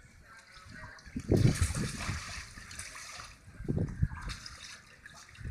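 Pool water sloshing and splashing against an inflatable water-walking ball as the child inside rolls it along, in two louder surges with dull thumps.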